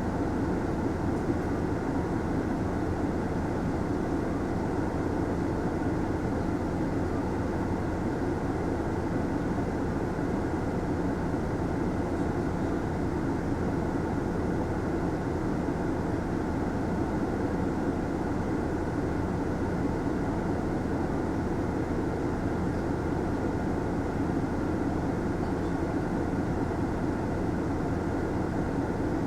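Mitsubishi Fuso Aerostar city bus running, heard from inside the passenger cabin: a steady low drone of engine and road noise.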